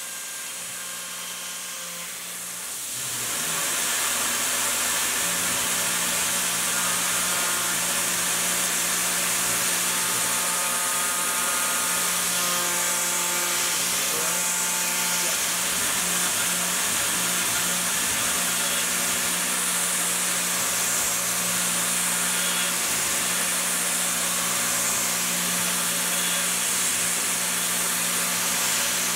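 CNC milling machine's spindle and small end mill 3D-surfacing an aluminium part: a steady machining sound with several held tones over a hiss. It is quieter for the first couple of seconds, then rises to a steady level.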